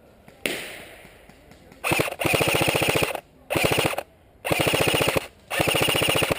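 Airsoft electric gun firing on full auto in four bursts of rapid, evenly spaced shots, the longest lasting about a second. A single sharp crack about half a second in comes before the first burst.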